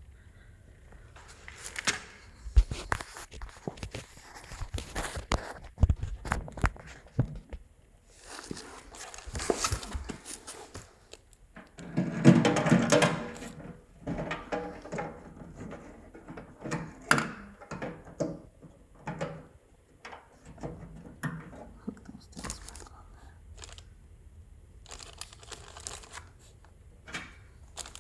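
Plastic door-latch parts of a GE Profile microwave being handled and fitted back together: scattered clicks, knocks and scraping, with a longer, louder rubbing stretch about twelve seconds in.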